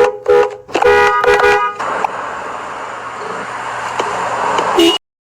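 2019 Infiniti QX50's dual-tone car horn sounding two short toots and then a longer blast of nearly a second, followed by a steady rushing noise.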